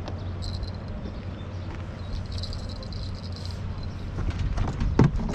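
Wind buffeting the microphone in a steady low rumble, with a run of knocks and rustles in the last second or so, the loudest just before the end, as a freshly caught fish is handled off the hook.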